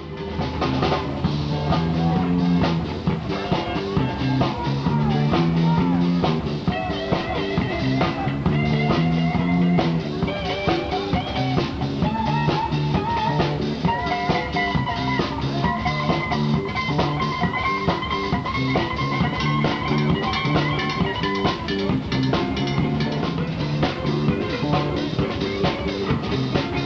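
Rock music with drum kit and electric guitar, a steady beat and a sustained melody line above it, starting suddenly from silence.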